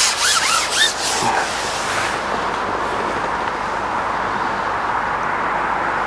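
Carbon fishing pole being shipped out, rasping as it slides through the hands and over the pole roller in quick strokes over the first second or so, then a steady, even hiss.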